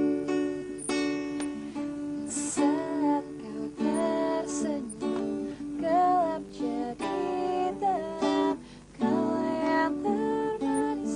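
Song intro played on a strummed acoustic guitar, with a gliding melody line above the chords; it breaks off briefly about nine seconds in.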